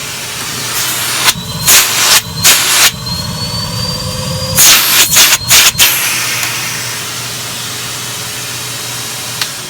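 Numatic Henry HVR200 canister vacuum cleaner running: a steady motor hum with a thin high whine that slowly rises in pitch. It is broken by several loud, short rushes of air as the floor tool works over carpet.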